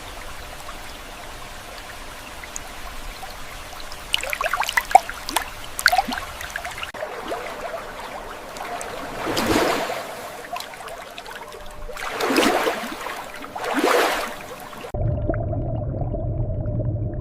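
Water splashing and trickling, then three short rushes of pouring or sloshing water, each about a second long. Near the end a steady low hum takes over.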